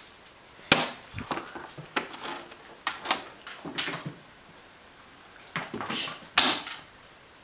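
Irregular light knocks and taps, about half a dozen, loudest near the end.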